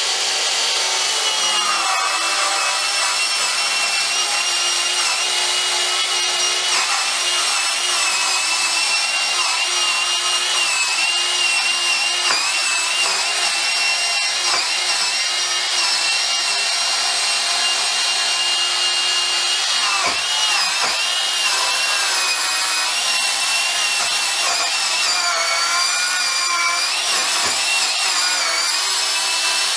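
Bosch EasyCut 12 cordless 12-volt nanoblade saw running continuously as it cuts through a block of wood. Its steady high whine wavers and dips in pitch as the blade loads up in the cut, most noticeably about twenty seconds in and again near the end. The cut goes slowly for such a small saw.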